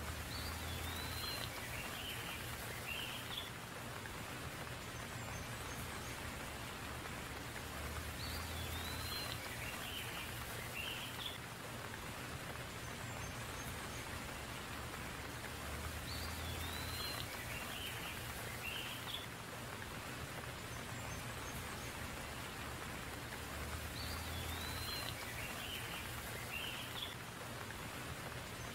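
Steady rain falling, with a short bird call coming in four times at even intervals of about eight seconds.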